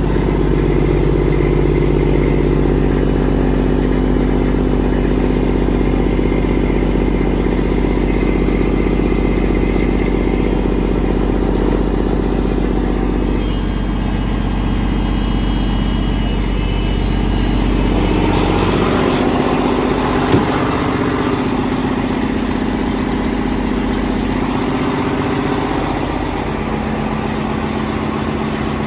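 Freightliner Classic XL semi truck's 14-litre diesel engine idling steadily soon after a cold start. The sound changes character about two-thirds of the way through, and there is one short click.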